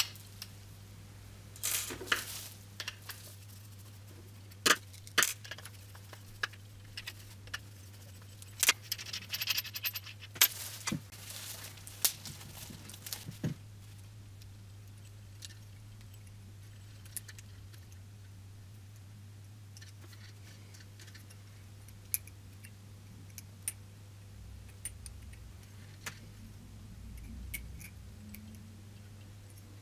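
Small metal headlight-projector parts clinking and clicking as they are handled and unscrewed by hand, busiest in the first half, then only occasional faint clicks as a pin is worked out of a wire connector with a pick tool. A steady low hum sits underneath.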